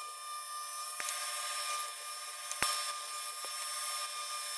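Spindle shaper running with a steady high whine as its cutterhead cuts slots across a spruce board, with a few sharp ticks along the way.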